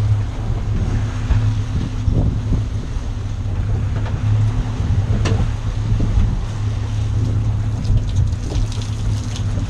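Boat engine running at a steady drone, with one sharp knock about five seconds in.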